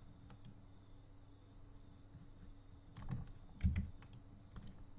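Computer keyboard keys and mouse buttons clicking while operating 3D modelling software: a few scattered taps in the second half, over a faint steady hum.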